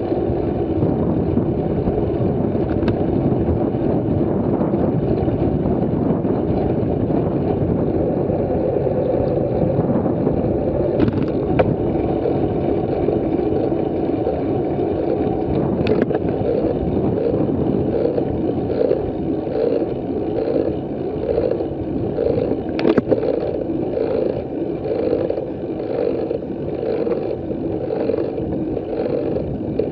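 Wind and road noise on the microphone of a bicycle-mounted camera while riding at about 25 km/h: a steady rushing, with a few sharp clicks and knocks from the bike. From about halfway in, a regular pulsing about one and a half times a second comes into the sound.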